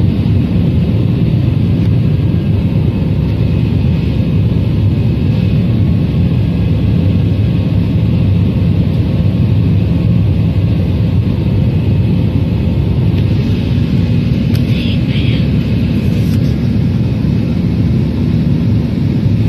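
Jet airliner cabin noise in flight: the engines and airflow make a loud, steady, deep rumble that fills the cabin.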